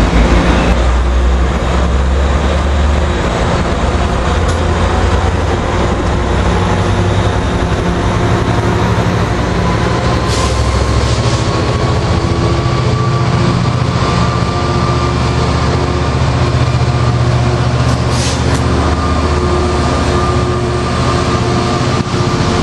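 Diesel locomotive engine running steadily with a low rumble, one tone slowly rising in pitch from about a third of the way in. Two short hisses, about 10 and 18 seconds in.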